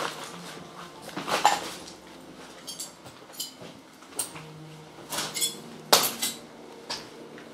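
Scattered knocks and clinks of loose debris being stepped on or bumped, some with a brief glassy ring. The sharpest knocks come about a second and a half in and about six seconds in.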